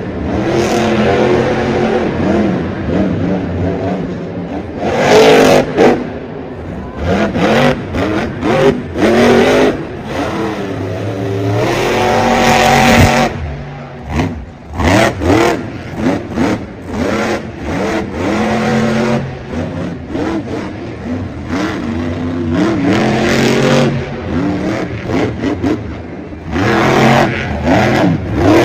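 El Toro Loco monster truck's supercharged V8 engine revving hard again and again, its pitch climbing and falling with the throttle, with several loud full-throttle bursts.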